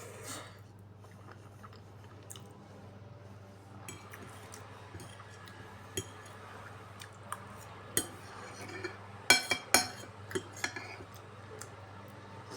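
Eating sounds: small clinks and clicks of cutlery against dishes, with a cluster of louder sharp clinks about nine to ten seconds in, over a steady low hum.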